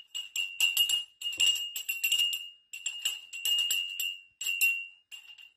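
A small jingle bell jingling in short, irregular bursts with brief pauses between, a ringing tone under each burst.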